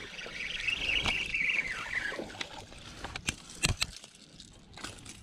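A fishing reel being cranked with a steady whirring for about two seconds while a hooked bass is brought in. Then a few sharp splashes and knocks as the bass thrashes at the water's surface at the bank.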